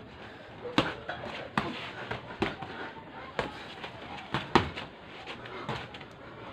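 Boxing gloves landing punches during sparring: a string of sharp, irregular smacks, about seven in six seconds, the loudest about a second in and again about four and a half seconds in.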